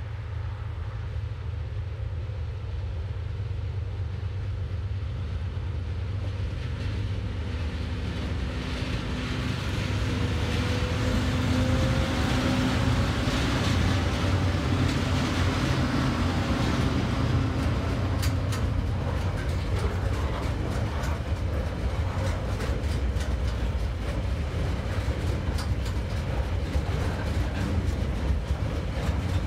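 TasRail TR-class diesel locomotives hauling a container train past: a low diesel engine drone grows louder as the locomotives draw near and go by around the middle. After that, the rolling rumble of the container wagons with rapid clicking of wheels on the rails.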